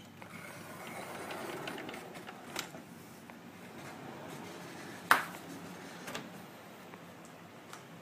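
A door being opened and stepped through: a soft rush of noise with a few clicks, then one sharp knock just after five seconds in and a lighter one a second later.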